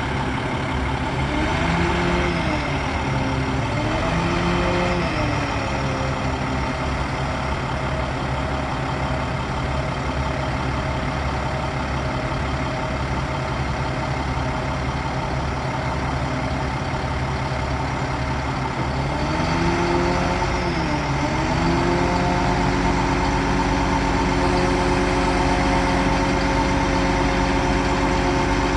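International DT466 turbo diesel engine of a bucket truck running steadily while the boom is worked. Its note swings in pitch briefly twice near the start and again about two-thirds of the way through, then settles a little louder and steady.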